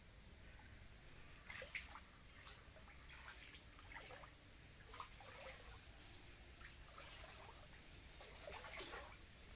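Near silence with faint, scattered trickles and drips of water at the pond.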